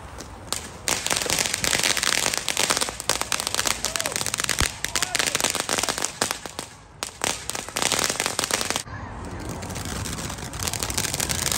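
Ground firework fountains spraying sparks, with dense crackling made of many sharp pops. The crackling stops suddenly about nine seconds in, leaving a softer hiss.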